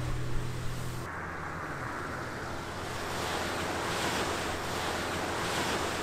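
Surf washing onto a sandy beach in slow swells, with wind buffeting the microphone. Music fades out about a second in.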